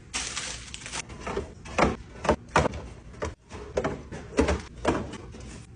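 Food containers and items being moved in and out of a fridge: a brief sliding, rushing sound at the start, then a string of hard plastic and glass clunks and knocks as things are set down on the shelves.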